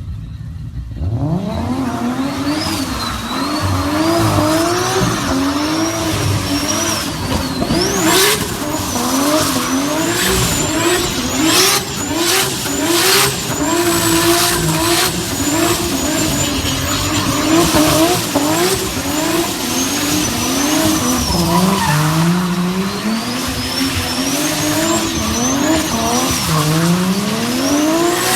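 Turbocharged car engine revving up and dropping back again and again, with a high turbo whistle rising and falling along with the revs. A run of sharp cracks comes about a third of the way in.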